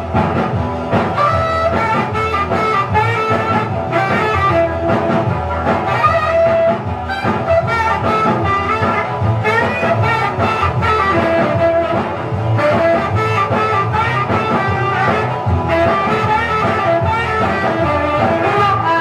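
A rock and roll record playing, with guitar prominent and a steady beat.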